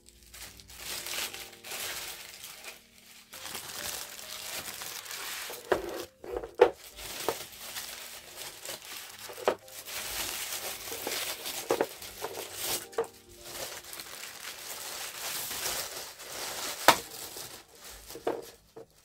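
Thin white wrapping paper crinkling and rustling as small ornate plaster frames are unwrapped by hand, with a few sharp knocks as the frames are set down on the desk; the loudest knocks come about a third of the way in and near the end.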